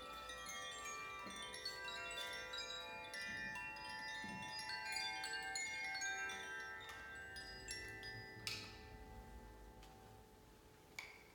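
Hand-played metal chimes tinkling: many bright struck notes at different pitches overlap and ring on. After about eight seconds the strikes stop and the ringing fades away, broken by a couple of faint clicks.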